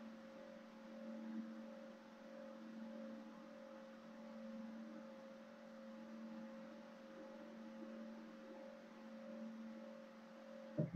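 Faint steady drone of two low held tones over a soft hiss, gently swelling and fading, with a short click just before the end.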